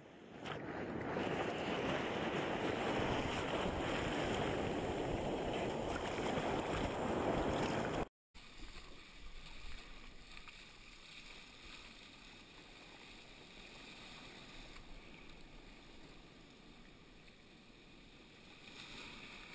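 Whitewater from a breaking wave rushing over and around a sea kayak, loud and continuous for about eight seconds. It then cuts off abruptly, and a much quieter steady hiss of foam follows as the kayak runs through the broken surf.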